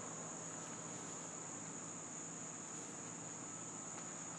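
Steady high-pitched insect chorus, one unbroken drone.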